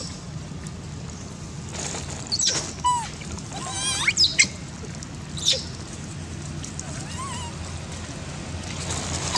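Young long-tailed macaque giving short, high-pitched squeaks and coos that slide up and down in pitch, about five times, over a low steady hum.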